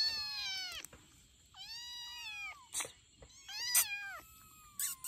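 Young tabby kitten meowing: three loud, high-pitched meows, each falling in pitch at the end, then a fainter drawn-out one near the end.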